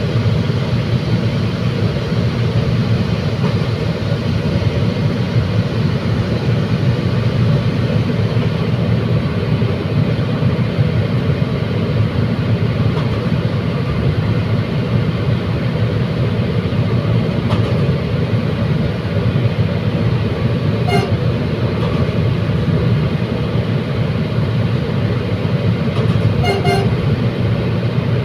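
Commuter train running along the track: a steady, loud low rumble of the wheels and the running gear. A few short, sharp ticks come through late on.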